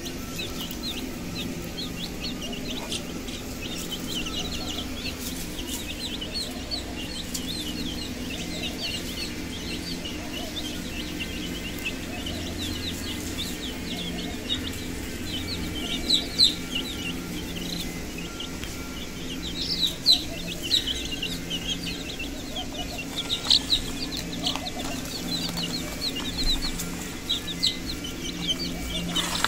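A flock of domestic chicken chicks peeping continuously: many short, high, falling peeps overlapping, loudest about halfway through and again in the second half, over a steady low hum.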